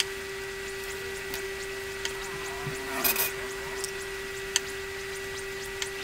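Light handling of a cardboard box model and its cardboard-roll legs on a tabletop: a few small taps and knocks, with a brief rub about three seconds in, over a steady faint hum.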